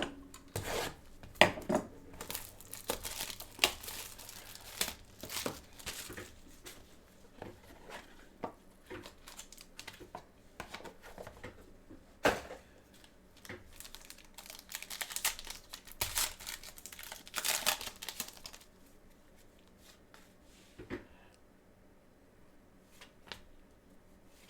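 Wrapping on a box of trading cards being torn open and crinkled, with the cards handled. The irregular rustling and crackling is dense for about the first 18 seconds, then thins to a few faint clicks.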